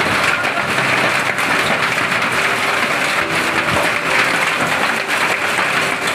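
Hail and rain pelting a paved street: a dense, steady clatter of countless small impacts.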